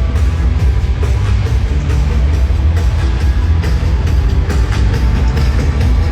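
Live band playing loud rock music, drum kit prominent over heavy bass, with regular drum and cymbal strikes.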